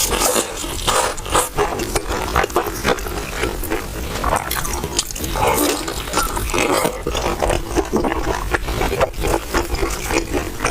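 Close-miked eating: crunching bites and wet chewing of crispy, paper-thin fried stuffed pies, with dense irregular crackles and smacking.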